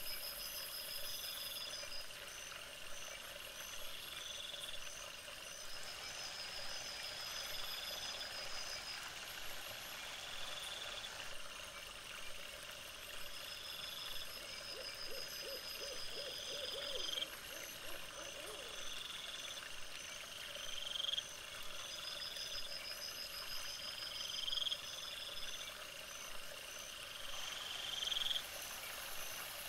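Repeated calls of night animals over a steady hiss: a short rising call about every two to three seconds, a rapid high trill coming back every few seconds, and a regular faint ticking.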